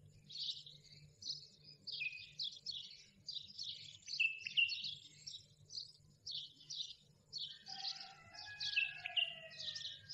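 Small birds chirping and twittering in quick, repeated high calls over a low steady hum. A few longer, slightly falling whistle-like tones join near the end.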